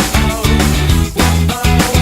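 Upbeat rock background music with electric guitar and a driving beat.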